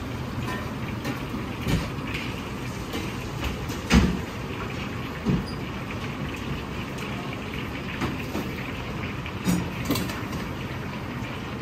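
Steady background noise of a commercial kitchen, with a few sharp metal clanks of strainer baskets and utensils on the stainless counter, the loudest about four seconds in.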